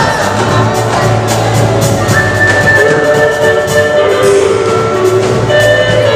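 Instrumental passage of live gospel band accompaniment: a drum kit keeping a steady beat under long held instrumental notes.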